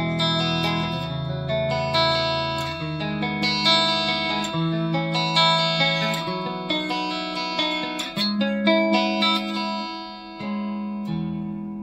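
Solar AB1.6TBS electric guitar on its middle pickup, played clean through a Marshall amplifier: a run of picked notes and chords that ring into one another, ending with a chord left ringing out near the end.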